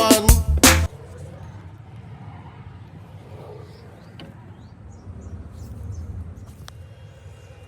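Music cuts off about a second in, leaving faint outdoor background: a low rumble like distant traffic, with a few brief bird chirps.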